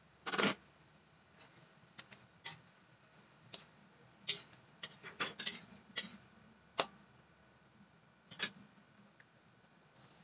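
Metal spatula scraping and clicking against an aluminium wok as fried eggs are turned in sauce. A longer scrape comes about half a second in, followed by a dozen or so short, irregular clicks.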